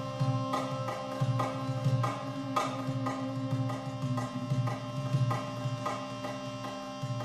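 Sound-therapy music: a hand drum struck in a steady rhythm, roughly one low beat every 0.7 seconds, over sustained ringing tones.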